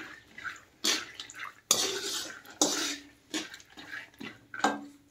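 Wire-mesh skimmer stirring almonds roasting in ghee in an aluminium kadai: several sudden scraping, clattering strokes of metal mesh against the pan and the nuts, over a sizzle.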